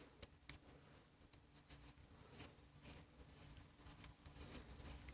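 Faint, scattered small clicks and ticks of fingers handling small metal carburetor parts as a nut is fitted to the float lever screw of a Linkert carburetor float, with a few slightly sharper clicks in the first second.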